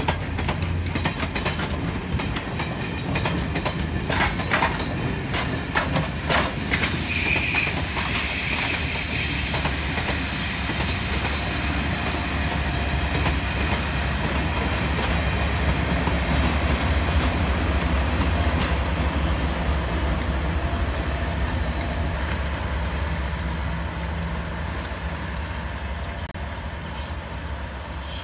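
Passing Class 37 diesel locomotive with test coaches. Its English Electric V12 engine drones under light power, and the wheels click over rail joints and points during the first several seconds. A high wheel squeal starts about seven seconds in, and the engine sound slowly fades near the end as the train moves away.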